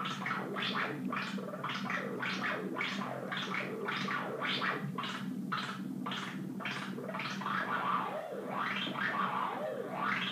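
Mogol synthesizer voice played by a chaotic 'jerk' circuit, with the filter cutoff and pitch both following the chaos. It makes an irregular stream of filter sweeps, roughly two a second, over a steady low tone, and its pitch wanders in arcs near the end.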